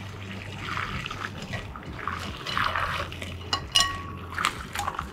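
Hot chicken broth poured from a saucepan through a fine-mesh metal sieve into a glass bowl, straining out the aromatics: a steady splashing trickle, with a few sharp clicks about three and a half seconds in.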